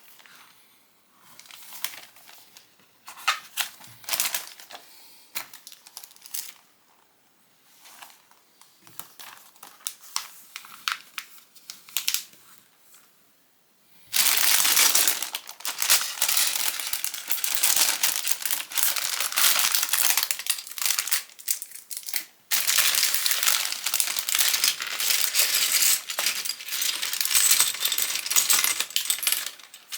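Crinkling of a thin plastic Lego parts bag being handled. It is light and intermittent at first, then loud and continuous from about halfway, with a brief pause before the last quarter.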